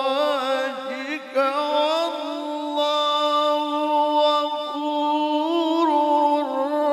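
A man reciting the Quran in the melodic tilawah style, solo and unaccompanied. Ornamented runs at first, then a long held note from about two seconds in, turning into a glide near the end.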